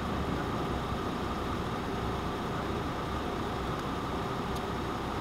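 Vehicle engine idling steadily, a constant hum with no changes.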